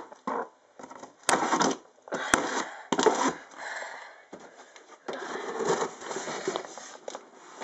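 Cardboard shipping box being handled and pried open: irregular scraping and rustling of cardboard, with two sharp clicks about one and two seconds in.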